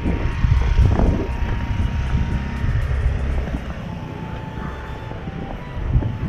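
A motor scooter passing close by, its engine loudest in the first three seconds or so and then fading, over a steady low rumble of street traffic.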